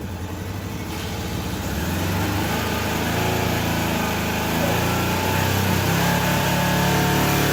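Honda CB750 F2's air-cooled four-cylinder engine idling unevenly. It has a slight misfire, running on three cylinders, which the owner puts down to a fouled spark plug on number 3 cylinder. The engine grows a little louder over the first couple of seconds.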